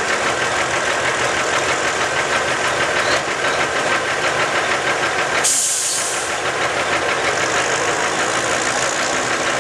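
Pulling tractor's diesel engine idling with a steady, fast clatter. A short hiss cuts in about five and a half seconds in.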